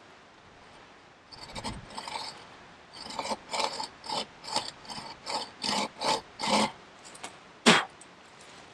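Wooden frame of a self-made bucksaw being handled: a run of short rubbing creaks, about two to three a second, then one sharp knock, the loudest sound, near the end.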